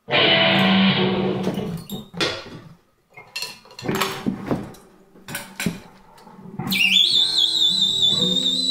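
Free-improvised music: an electric guitar through effects, its strings struck and tapped with a small stick, giving scattered plucks and knocks with gaps between. About seven seconds in, a high, slightly wavering whistling tone enters from a small wind instrument blown at the mouth.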